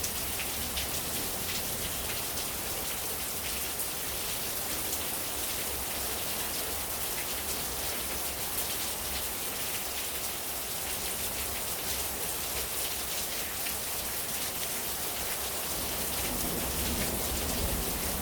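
Steady rain falling, with a few faint clicks.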